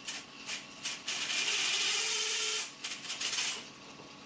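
A LEGO Technic car's electric motor, gear train and automatic friction clutch whirring and rubbing as the clutch takes up drive and the car moves off. A louder whir starts about a second in and lasts about a second and a half, with plastic clicks before and after it.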